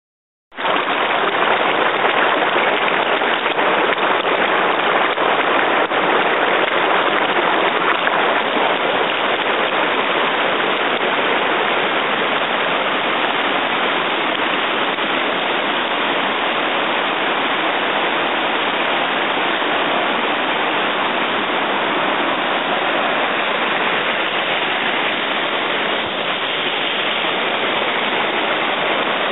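Loud, steady rush of river rapids, white water pouring over rocks and a low ledge, cutting in suddenly about half a second in.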